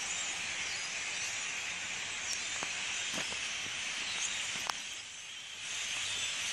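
A large flock of European starlings chattering overhead, a dense continuous wash of high squeaks and whistles. It thins briefly about five seconds in, just after a sharp click, then swells again.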